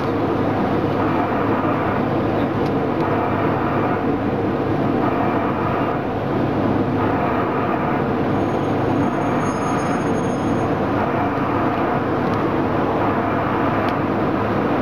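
Diesel engine of the Botchan Ressha replica steam locomotive running steadily, with its wheels rolling along the tram rails.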